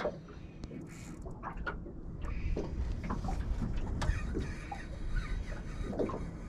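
Low rumble of wind buffeting the microphone, building about two seconds in, with scattered small clicks and knocks.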